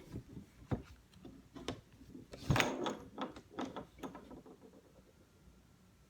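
Removable battery being fitted back into a Lenovo ThinkPad T560: a run of small clicks and knocks as it is seated and latched, with a louder clack about two and a half seconds in.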